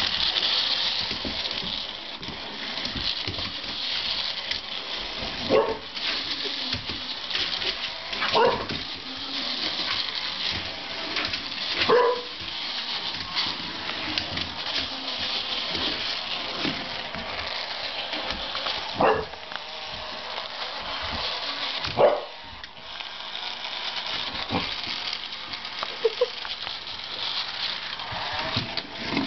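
A chocolate Lab/Springer Spaniel mix puppy giving about five short, separate barks spread over the stretch, against a steady high hiss.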